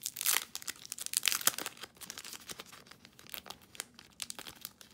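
Clear plastic wrapper of a small sticker pack crinkling as it is handled: a run of sharp crackles, loudest in the first second and a half, then lighter and scattered.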